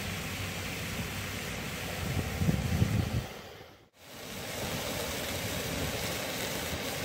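Fish frying in a pan on a camp stove: a steady sizzling hiss, with a low rumble swelling about two and a half seconds in. It fades out for a moment just before four seconds in, then comes back.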